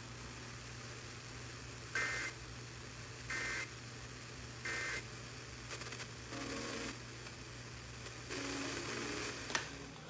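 NOAA Weather Radio EAS end-of-message: three short bursts of SAME digital data, a two-tone buzzy warble, a little over a second apart, closing the severe thunderstorm warning. A steady low hum runs under it, and two fainter, lower sounds follow in the second half.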